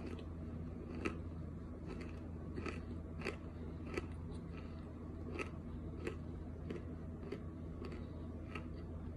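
A person chewing a mouthful of dry cornstarch crumbles with the mouth closed, making a series of short, sharp crunches about one a second.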